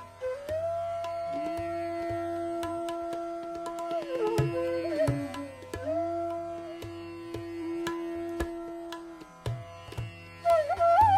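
Bansuri flute playing Raag Bhopali in Hindustani classical style, long held notes joined by slides, over tabla strokes and a steady drone.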